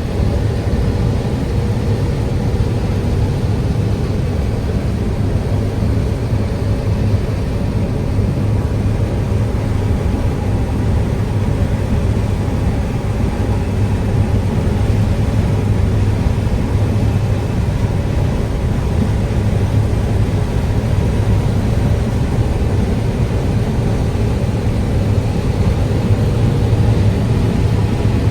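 John Deere 9760 STS combine running with a steady, unbroken low engine drone.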